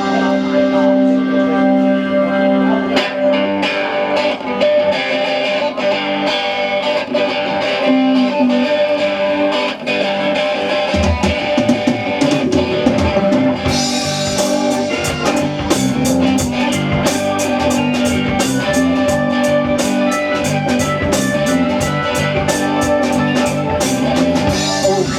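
Live rock band playing an instrumental passage: guitars over held notes, with the drums coming in about halfway through and cymbals keeping a steady beat after that.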